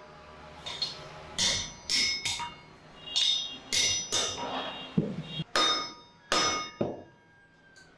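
Hand hammer striking a red-hot iron cleaver blade on an anvil: about a dozen irregular blows, each with a short metallic ring, stopping about a second before the end.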